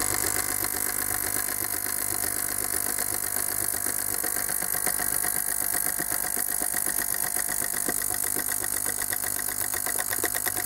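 Ultrasonic cleaning bath running, a steady, loud, hissing buzz. Inside it, a Bosch common-rail fuel metering solenoid valve is being pulsed by a PWM signal generator to flush out dirt that had jammed it, adding a fast, even chatter.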